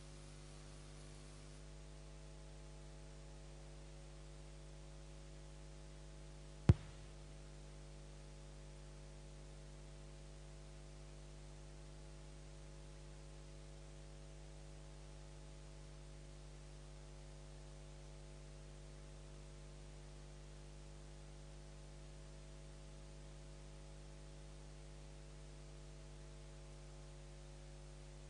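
Steady electrical mains hum from a public-address or recording feed, with a faint hiss. One sharp knock about seven seconds in.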